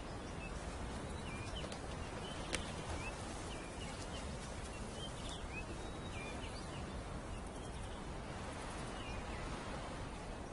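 Outdoor natural ambience: a steady, even hiss with many short, high chirps scattered through it, and a single sharp click about two and a half seconds in.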